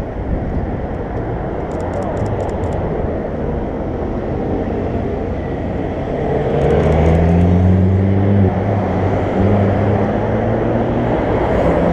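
Street traffic on a busy city avenue: cars driving past, with one vehicle's engine hum growing louder about halfway through and running steadily for a few seconds. A few faint light clicks.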